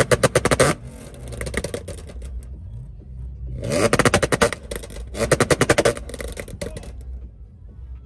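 Audi S5 revved in short throttle blips, its exhaust crackling and popping on the overrun: three sharp rev-ups, near the start, about four seconds in and just after five. Each breaks into rapid strings of pops and bangs, and lighter crackles run in between over a low idle rumble.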